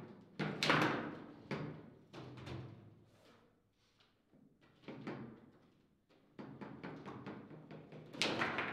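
Table football play: sharp clacks and knocks of the ball against the plastic figures and the table walls, and of the rods being jerked against their stops, in irregular clusters. The loudest knock comes about a second in, with a quieter spell in the middle and another flurry near the end.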